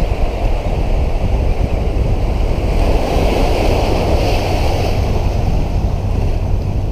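Ocean surf churning and washing over the rocks just below, swelling louder as a wave surges in around the middle, with wind rumbling on the microphone.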